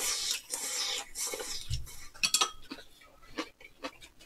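Slurping a mouthful of soup-soaked food off chopsticks, then a few light clinks of utensils against ceramic bowls about two seconds in.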